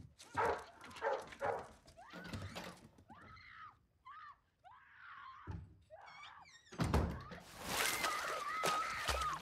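Film sound effects: several heavy thuds, then a run of short, high, whimpering cries. About seven seconds in comes loud water splashing with a long, held scream.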